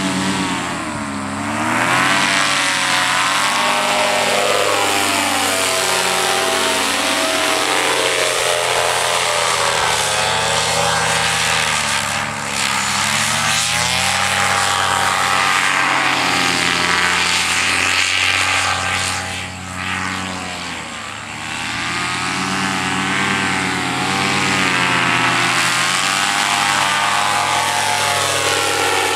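Paramotor engine and caged backpack propeller running hard as it lifts off and flies low past, its pitch dipping and rising several times.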